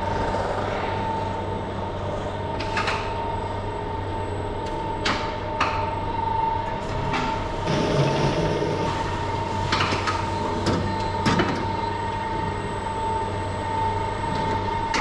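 Lely Vector overhead feed grabber running on its gantry with a steady electric-drive whine and low hum, broken by a series of sharp metallic clanks. It is dropping a grab of forage into the feeding robot's mixing bin.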